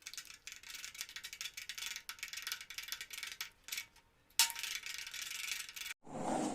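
A spoon stirring toothpaste and hot water in a bowl: rapid, irregular scraping and clicking against the bowl, with a short pause and then a sharper knock about four seconds in.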